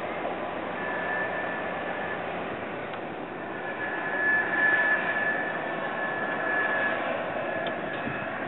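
Turbofan engines of a J-AIR Embraer regional jet running at low power as it rolls along the runway after landing. They make a steady rushing noise with a thin high whine, which swells about halfway through.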